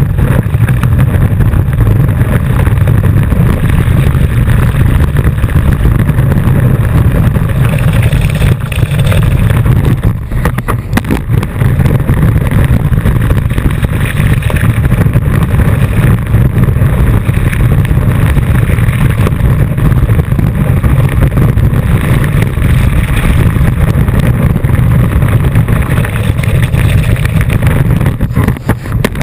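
Loud, steady rushing rumble of water and wind hitting a board-mounted action camera as a wakeboard skims and sprays across the water, dipping briefly about ten seconds in.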